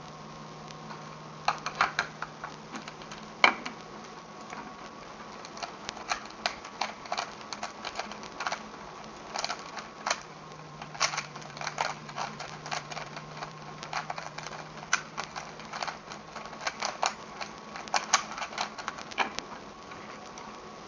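A 3x3 Rubik's cube turned fast during a speedsolve: an irregular clatter of plastic layer turns, in quick runs broken by short pauses, over a faint steady hum.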